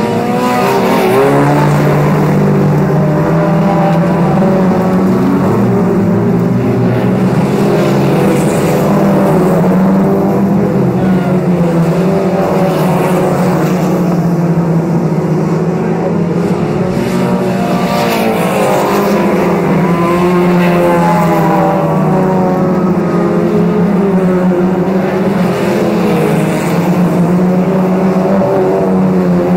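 Several 1600 cc class autocross race cars running on a dirt oval, their engines revving up and down over one another as they slide through the corner and pass. The engine sound is loud and continuous, with pitches rising and falling as the cars accelerate out of the turn.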